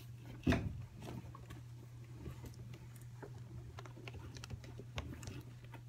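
Faint, scattered light clicks and taps, one louder about half a second in, over a steady low hum.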